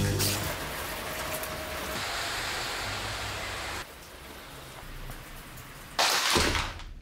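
A steady rushing noise. It drops in level about four seconds in, and a short, louder burst of it comes near the end.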